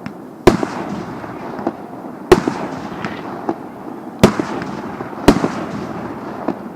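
Fireworks display: four loud bangs a second or two apart, with smaller crackling pops and a continuous rumble between them.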